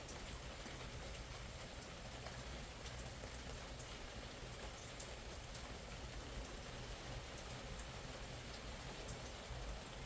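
Steady rain falling, with scattered small pops and crackles from a fire burning in it.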